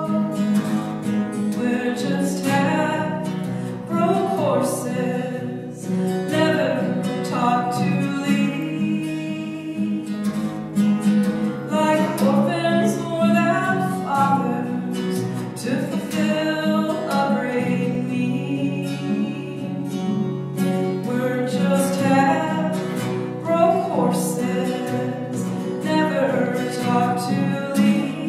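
A woman singing a slow song while playing a strummed acoustic guitar.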